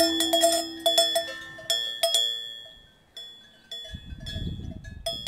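Cowbell clanking in irregular strikes, each ringing out and fading. From about four seconds in, a low rushing noise joins it.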